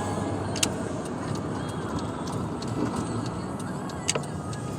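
Steady road and engine noise heard from inside a moving car's cabin, with a couple of sharp clicks, one about half a second in and one near the end.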